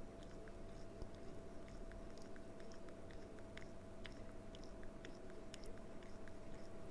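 Faint room tone: a steady low electrical hum with scattered small soft clicks.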